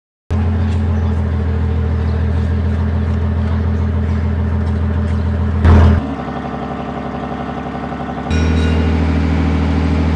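Engine of a river passenger launch running with a steady, deep hum. The sound changes suddenly twice, with a brief louder burst a little over halfway through.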